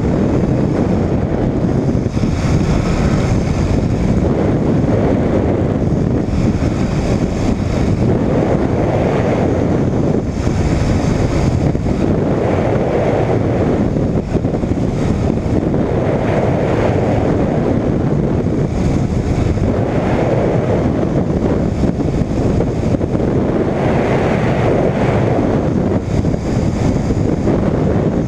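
Air Création Pixel weight-shift microlight trike in flight: a steady rush of wind on the microphone over the drone of its pusher engine and propeller.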